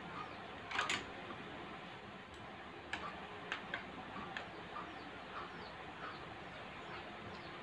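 A few sharp clicks of chopsticks against a plate, the loudest about a second in, over steady background hiss with a faint short chirp repeating about twice a second.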